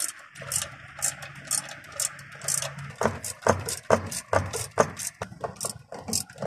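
Ratchet wrench clicking in repeated short strokes as it tightens the timing-cover bolts on a VW 2.0 FSI engine, about two strokes a second at first, then quicker and louder from about three seconds in.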